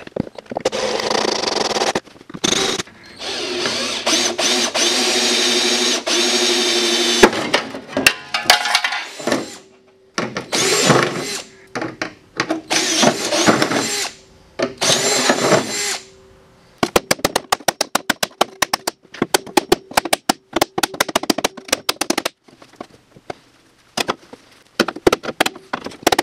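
Cordless drill drilling out rivets in a snowmobile's aluminum chassis, in several bursts: a long steady whine, then shorter bursts. After that come rapid sharp taps of a ball-peen hammer on the aluminum.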